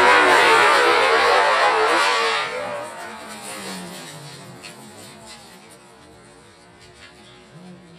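Lotus Exige's Honda K20A four-cylinder engine running hard at high revs as the car passes close, loud with tyre noise. About two and a half seconds in, the sound drops suddenly to a faint, distant engine whose note falls as the car slows off the track.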